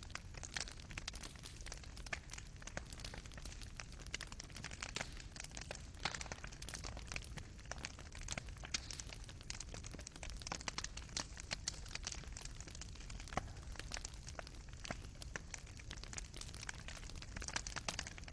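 Fireplace fire burning, its wood and coals crackling and popping with irregular sharp snaps over a soft low rumble of the flames.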